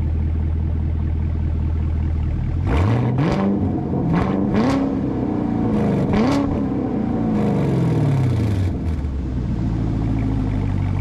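2019 Camaro SS 1LE's LT1 6.2-litre V8 idling, then revved in a few quick throttle blips from about three seconds in, falling back to a steady idle near nine seconds. The engine is on its first heat cycle after the rebuild.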